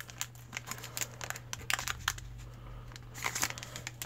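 Foil trading-card booster pack wrapper crinkling and crackling as it is handled and torn open, with a denser run of crinkles about three seconds in.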